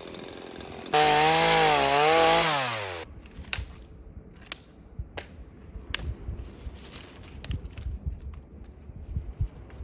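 Chainsaw running at idle, then revved to full throttle for about two seconds with its pitch wavering, before winding down and stopping. Scattered sharp cracks and knocks follow.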